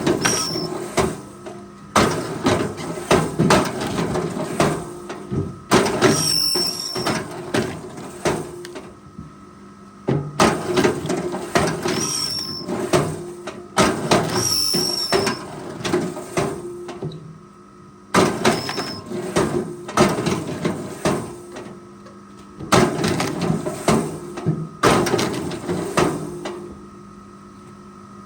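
Repeated clattering knocks of wood and metal in bursts of a few seconds, over a steady machine hum, with a few short high squeaks.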